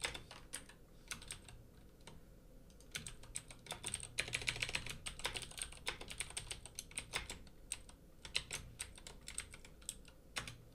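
Typing on a computer keyboard: irregular runs of key clicks with short pauses, the fastest run about four seconds in.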